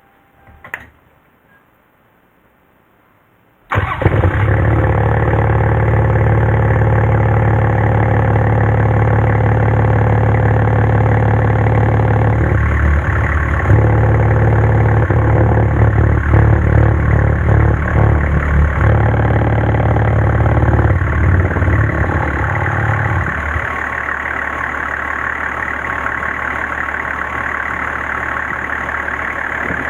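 A short click, then the Land Cruiser 70's 1HZ inline-six diesel engine fires up abruptly about four seconds in and runs steadily at idle. This is the engine being restarted after an oil and filter change. Near the end the running settles a little quieter.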